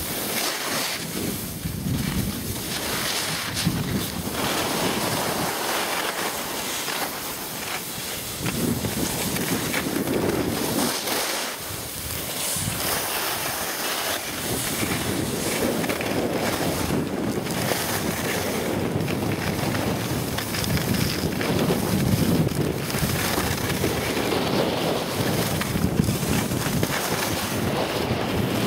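Wind rushing over the microphone of a moving skier, mixed with the hiss and scrape of skis sliding over packed snow, swelling and easing every few seconds.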